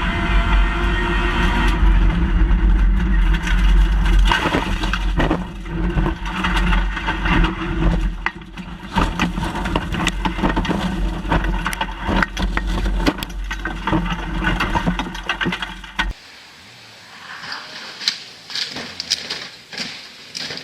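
Rally car engine running loud, with many knocks, bangs and scraping as the car crashes. About 16 seconds in the engine sound cuts off abruptly, leaving only quieter scattered clicks and thuds.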